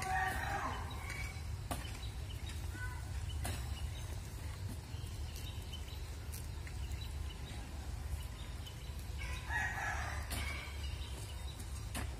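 A rooster crowing twice, each crow about a second long: once at the start and again about nine seconds in. Between the crows come scattered short knocks of a hoe chopping into loose soil.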